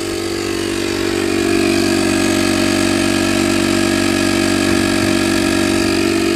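Built-in air compressor of a CAT PPSCL3 lithium power station running under load as it inflates a truck tire from 34 toward 40 psi: a steady pitched hum that grows a little louder over the first second or so, then holds even.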